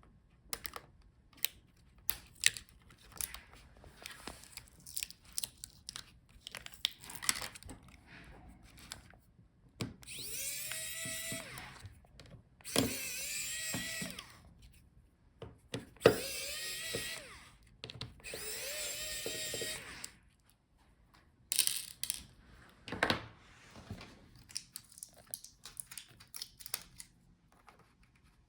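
Electric precision screwdriver running in four short bursts of one to two seconds each, its motor whine rising as it spins up, backing out the small screws that hold the touchpad. Light clicks and taps of small parts and tools being handled come between the bursts.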